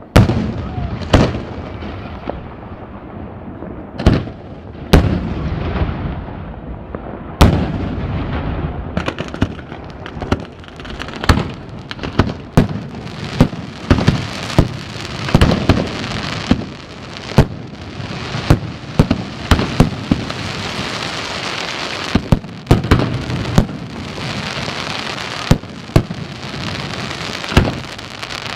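Fireworks display: aerial shells bursting in sharp bangs, at first a few seconds apart and after about ten seconds one every second or less. A dense crackling hiss fills the gaps between the bangs in the second half.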